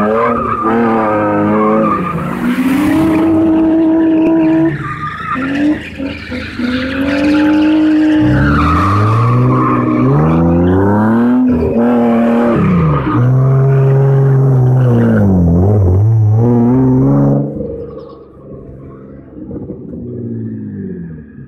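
A car drifting on concrete: its engine revs climb and fall again and again with tyres squealing and skidding. About three-quarters of the way through the engine sound drops off sharply and stays faint.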